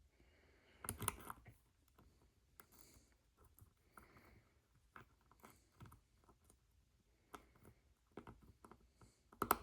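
Faint, scattered small metallic clicks and scrapes of lock picks and a tension wrench working in an ABUS 5540 lock as picking starts over, with a louder cluster of clicks about a second in and another near the end.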